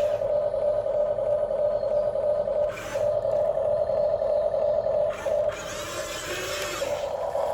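Radio-controlled toy excavator running, a steady high-pitched motor whine that briefly drops out twice and turns hissier for a second or so near the end.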